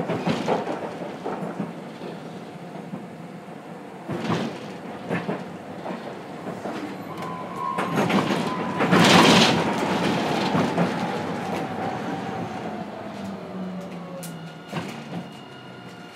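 Onboard running sound of a Hiroden 3900-series tram with a Toyo SiC inverter: wheels clicking over rail joints, and a loud rushing noise about nine seconds in. Through the second half the motor tone falls steadily in pitch as the tram slows, then the noise eases off.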